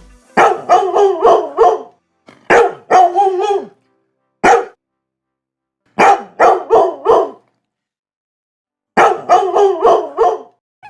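Dog barking in quick runs of four or five barks, with single barks between and pauses of silence between the runs.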